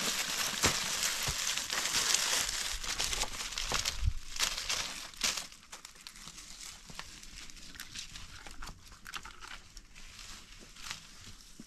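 A tree branch dragged across dry fallen leaves, with footsteps crunching through the leaf litter: a dense, loud crackling and rustling that drops off sharply after about five seconds to fainter scattered crackles as it moves away.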